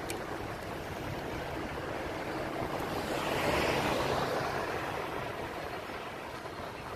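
Steady rushing noise heard from a moving bicycle on a city street: wind on the microphone mixed with traffic. It swells about halfway through, then eases off.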